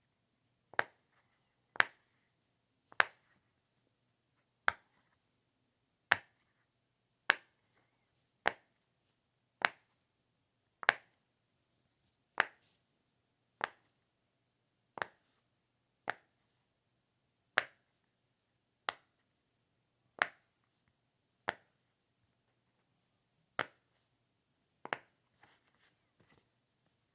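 A run of sharp single pops, about nineteen of them, coming roughly once every second and a bit at a fairly even but not machine-exact pace, each with a short ring. There is a longer gap near the end, then a couple of fainter clicks.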